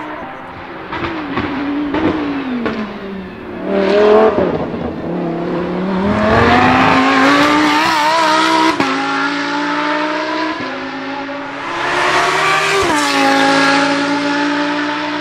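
Lamborghini Huracán Super Trofeo EVO race car's 5.2-litre naturally aspirated V10 at speed. Its note drops over the first few seconds, then climbs again under acceleration, with a couple of sharp cracks at gear changes and another fall and rise near the end.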